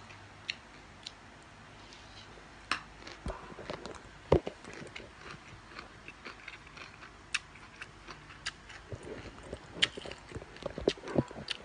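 A utensil clicking and knocking against a plastic bowl as a wet rice-noodle salad is handled and mixed. The clicks are scattered, with one louder knock about four seconds in and a quick run of clicks near the end.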